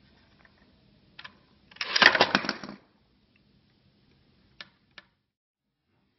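Homemade cardboard leprechaun trap being set off: a click, then about a second of rapid clattering and rattling as its parts run and the hat-shaped trap piece drops, followed by two small clicks.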